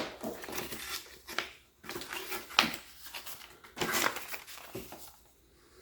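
Handling noise: a few short rustles and clunks as parts and packaging are picked up and set down, dying away near the end.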